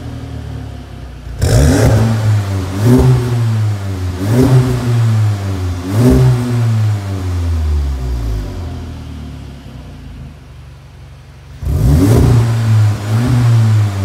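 Volkswagen Golf MK7.5 GTI's turbocharged 2.0-litre four-cylinder, stationary and free-revving through an ARMYTRIX valved aftermarket exhaust. It idles, then gets four sharp throttle blips in quick succession, each rising in pitch and falling back, settles to idle, and gets two more blips near the end.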